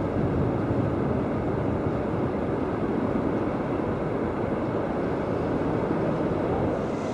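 A steady, even vehicle rumble with no separate knocks or tones. It comes from the moving passenger boat and a long freight train rolling along the far bank.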